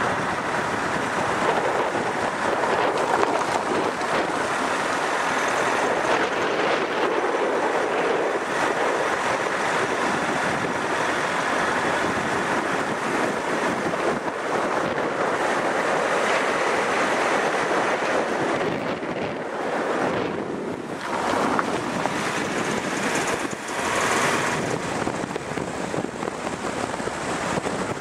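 Steady rushing wind noise on the microphone, mixed with road noise from a moving vehicle; it dips briefly a couple of times in the last third.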